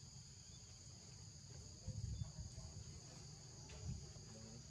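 Steady high-pitched drone of insects, two unbroken shrill tones, under a low rumble that swells briefly about two seconds in and again near the end.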